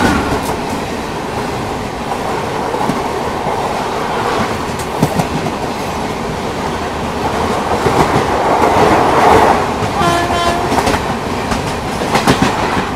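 Express passenger train running, heard from on board: a steady rumble with the wheels clattering over the rail joints. A short horn sounds for about a second, roughly ten seconds in.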